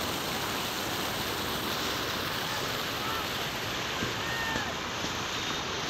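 Floodwater rushing across a road: a steady, even rush of water noise, with faint distant voices calling out around the middle.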